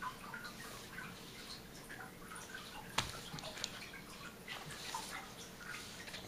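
Faint scattered taps, scuffs and small clicks from a crawling baby's hands on a quilted play mat and a cardboard board book, with one sharper tap about three seconds in.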